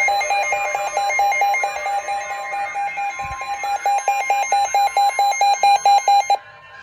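Weather radio receiver's alert alarm beeping rapidly and loudly, set off by a Special Marine Warning broadcast, under a faint steady warning tone from the broadcast. The beeping cuts off suddenly about six seconds in.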